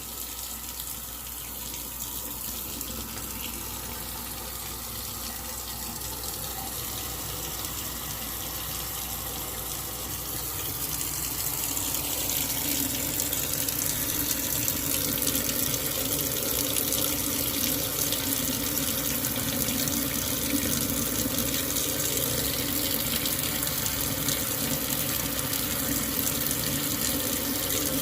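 Water running from a tap into a sink, a steady rush that gets louder about eleven seconds in.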